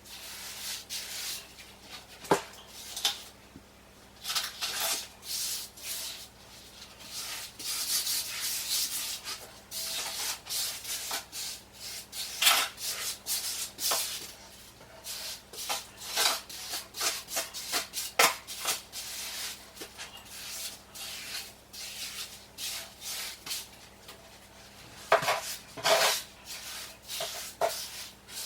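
A hand trowel scraping and spreading mortar in repeated, irregular strokes, with an occasional sharper scrape or click.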